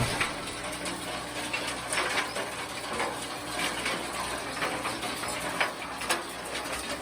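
Home-built soil-sieving machine running: a low steady hum with many small irregular rattles and clicks.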